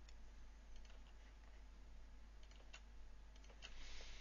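Faint, scattered clicks of a computer mouse and keyboard as vertices are picked and deleted with the Backspace key, over a low steady hum.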